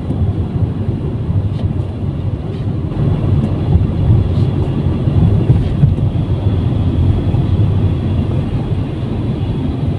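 Steady low rumble of road and engine noise heard from inside a moving car's cabin, growing a little louder about halfway through.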